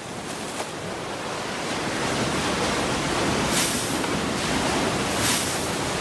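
Surf washing onto a sandy beach: a steady rush of waves, with two brief hissing swells about three and a half and five seconds in.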